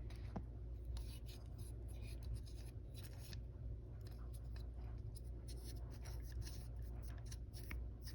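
Irregular dry scrubbing and scratching strokes as the Glowforge laser cutter's exhaust fan is cleaned by hand, over a steady low hum.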